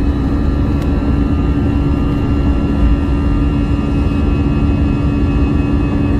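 Airbus A320 jet engines and airframe heard from inside the cabin: a loud, steady rumble with a steady hum and a higher whine.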